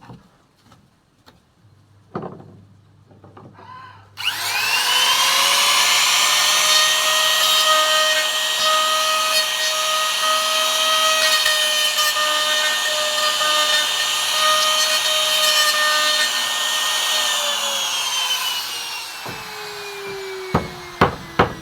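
Wood trimmer (compact router) with a straight bit switched on about four seconds in, spinning up fast to a steady high whine while it cuts a mortise in wood. Near the end it is switched off and its pitch falls steadily as it winds down, with a few sharp clicks.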